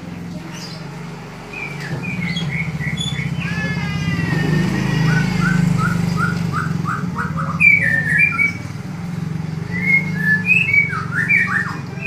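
White-rumped shama (murai batu) singing vigorously: after about a second and a half, runs of quick repeated whistled notes, a string of rising-and-falling sweeps, a descending series of notes, then varied loud phrases. A steady low hum runs underneath.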